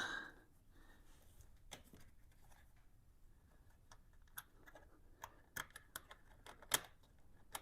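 Faint, scattered metal clicks and taps of a battery hold-down bracket and its bolts being handled and fitted back in place, about eight in irregular succession, the loudest near the end.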